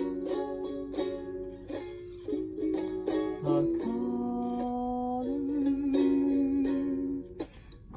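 Ukulele fingerpicked in quick single notes, giving way about two seconds in to slower, longer-ringing notes, with a short pause just before the end.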